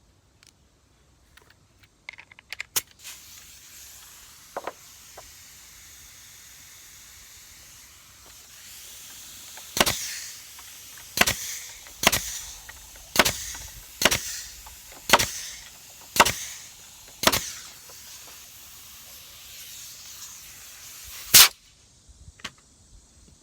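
Nails being driven to fasten plywood onto the wooden frame: eight sharp strikes about a second apart, then a single louder one near the end, over a steady hiss.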